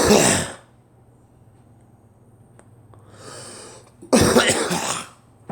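A person coughing: a loud cough right at the start and another about four seconds in, with a softer noisy sound shortly before the second.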